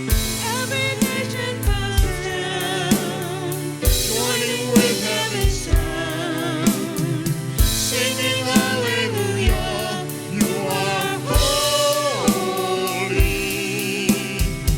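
Live worship music: a praise band with drum kit and several voices singing a sustained, held melody between lines of the song.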